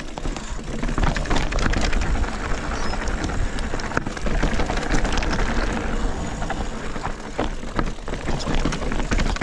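Electric mountain bike riding down a rocky trail: tyres crunching over stone and the bike rattling and clattering with many small knocks, over a steady low rumble of wind on the microphone.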